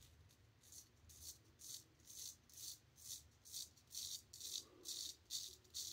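River Razor 14 straight razor, its edge finished on a black Arkansas stone, scraping through lathered stubble against the grain in short quick strokes, about two a second, growing louder. The edge cuts but has a slightly dull, coarse sound to it.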